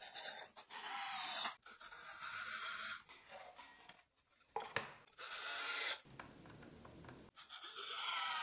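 Cordless drill-driver driving 40 mm screws into pine. It runs in about four short bursts of a second or so each, with pauses between them and a click partway through.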